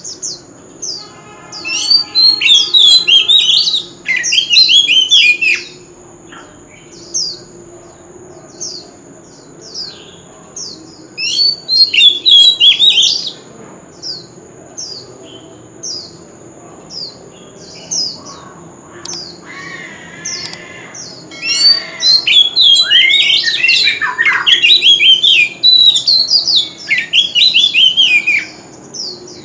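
Oriental magpie-robin singing: loud bursts of rapid, varied whistled phrases that sweep up and down in pitch, with short falling chips repeated about once a second between the bursts.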